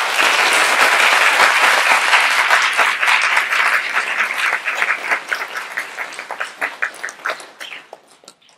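Audience applauding, dense at first, then thinning to scattered single claps that die away near the end.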